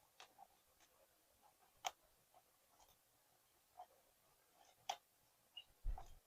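Faint, scattered small clicks and taps of hands working at a porcelain doll, two of them sharper, about two and five seconds in, followed by a low thud near the end.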